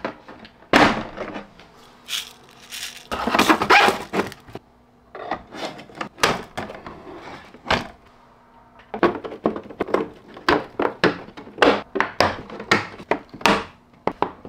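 Hard plastic clicks, knocks and scraping from 3D-printed PLA enclosure buckets and spool holders being handled and fitted together. A longer scrape comes a few seconds in, and a quick run of clicks, about two or three a second, fills the second half.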